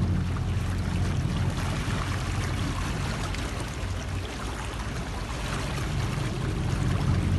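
A boat's engine running with a steady low hum, under a constant hiss of rushing and splashing water. The engine hum fades in the middle and comes back near the end.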